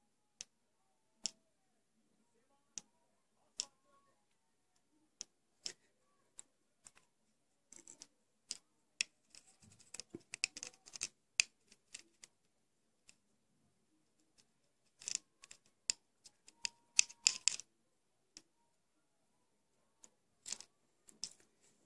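Aluminium foil tape crackling and clicking as it is rubbed and pressed down onto a hard plastic fishing lure with a small metal cylinder: scattered sharp clicks, with denser runs of crackling about eight to eleven seconds in and again around fifteen to eighteen seconds.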